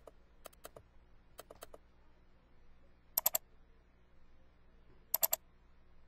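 Computer mouse clicking: a few faint single clicks in the first two seconds, then two louder bursts of three rapid clicks, about 3 s and 5 s in.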